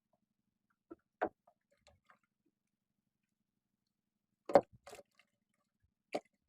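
A few scattered sharp knocks and clicks, the loudest a short cluster about four and a half seconds in.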